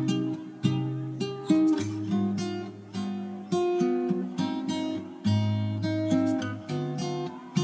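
Background music: acoustic guitar, chords strummed and notes plucked, each attack ringing out and fading before the next.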